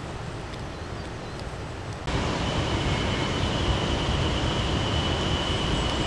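Steady outdoor background rushing noise that jumps louder about two seconds in, with a thin steady high tone running through the louder part.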